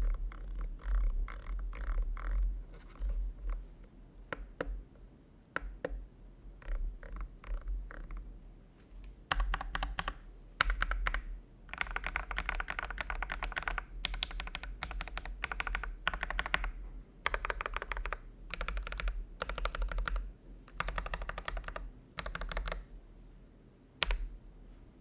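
Typing on a custom-built Keychron V1 mechanical keyboard with CIY Evo Red switches and Cherry-profile keycaps, giving a clacky keystroke sound. Scattered keypresses at first, then fast typing in bursts with short pauses from about nine seconds in.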